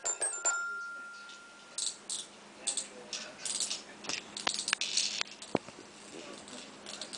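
A few bell-like toy chime notes ring out and fade in the first second, followed by several short rattling shakes of a small baby toy and a few sharp clicks.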